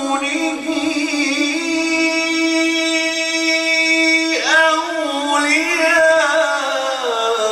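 A man reciting the Quran in a melodic chanted style, holding long sustained notes and ornamenting them with quick turns partway through, then stepping down in pitch near the end.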